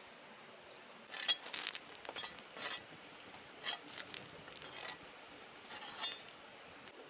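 A flat spatula scraping and knocking in a blackened metal pan as fried black spiders are scooped out: a series of short scrapes and clicks, loudest about a second and a half in.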